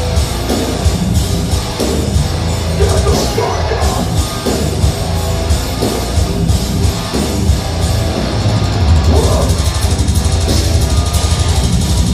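Deathcore band playing live at full volume: distorted guitars, bass and a drum kit driving through the opening of a song. The playing gets denser and louder about nine seconds in.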